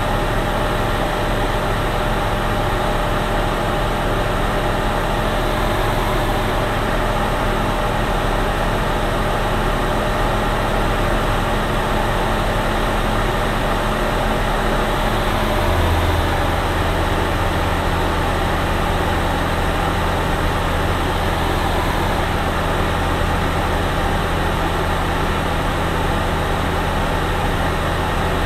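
Steady drone of a light aircraft's engine heard inside the cockpit in cruise descent. About halfway through, the low hum shifts to a deeper tone.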